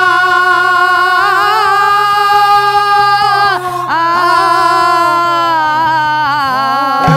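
A woman singing an Odia devotional verse in long, held notes with a wavering pitch, over a steady low drone. The sung line breaks off about three and a half seconds in and resumes, then ends just before the close.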